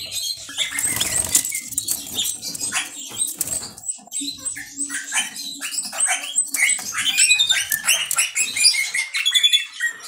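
Domestic canaries in a cage making many short, high chirps and squeaks, with faint clicks and rustles.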